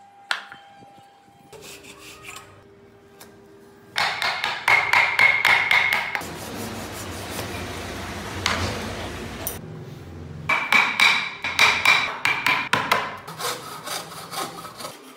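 A small wooden part being hand-sanded: rubbed back and forth on a flat abrasive board in quick rasping strokes, several a second. The strokes start about four seconds in, turn into a steadier scraping for a few seconds, then come again in a fast run near the end.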